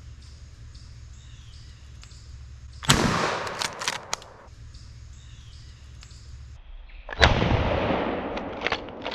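Two 20-gauge shotgun shots about four seconds apart. Each is a sharp blast followed by about a second of fading echo.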